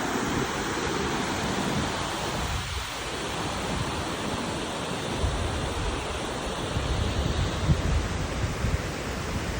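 Waterfall pouring in a steady, even rush of falling water. From about halfway, wind buffets the microphone in low, uneven thumps.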